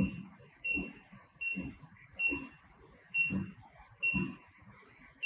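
HighTex 71008R bar tacking machine's control panel beeping at each press of the forward key, each short beep joined by a brief low motor sound as the clamp frame steps forward one stitch. About six presses, a little under a second apart.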